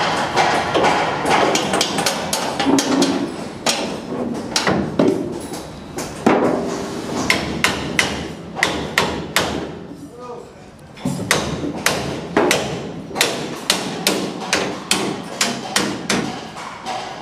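Hammer striking aluminium formwork panels overhead: a run of sharp, irregular metallic knocks, with a short lull about ten seconds in.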